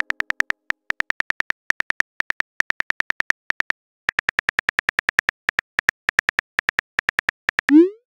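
Simulated phone keyboard typing sound effect: rapid, identical short pitched clicks, about eight to ten a second, with a short pause around the middle. Near the end comes a brief rising swoosh, the message-sent sound.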